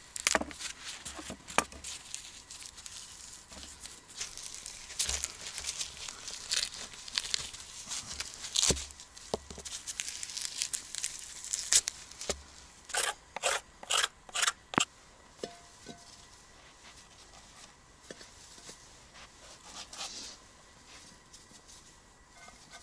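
Knife scraping and cutting through frozen pike on a wooden chopping stump, with gloved hands tearing and rubbing the chunks of fish, and irregular clicks and knocks. Partway through comes a run of about five quick, loud scraping strokes, and after that the handling is quieter.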